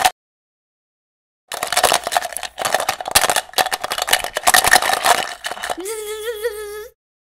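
Rapid, irregular clattering and rattling of small hard objects for about four seconds, made by hand as a foley effect. It is followed near the end by a brief wavering, pitched voice-like tone.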